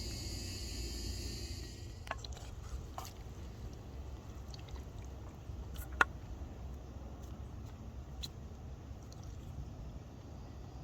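Insects chirring steadily in the forest, cutting off about two seconds in, over a low outdoor rumble. After that come a few light clicks and taps, with one sharp click about six seconds in.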